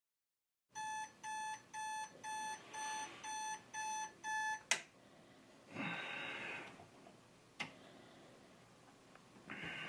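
Bedside digital alarm clock beeping, eight evenly spaced beeps at about two a second, ending with a sharp click. A short hiss follows about a second later, then another click.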